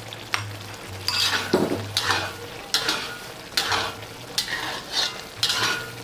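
Metal wok spatula scraping and stirring through mapo tofu in a wok, in repeated strokes a little under a second apart. The third addition of starch slurry is being worked in to thicken the sauce.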